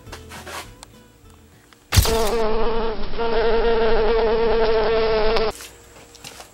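Buzzing wasp sound effect: a loud, steady, high insect buzz with a wavering pitch that cuts in sharply about two seconds in and stops abruptly about three and a half seconds later. Faint handling and knocking noises come before it.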